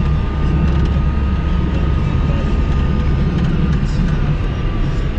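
Car driving along a road, heard from inside the cabin: a steady low rumble of engine and tyre noise, with a faint steady whine above it.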